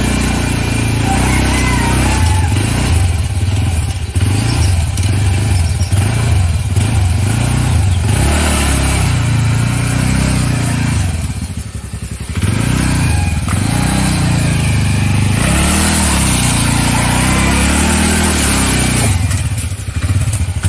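Motor scooter engine running and revving as the scooter is worked through deep mud. The engine note sags briefly about halfway, then rises and falls in several revs.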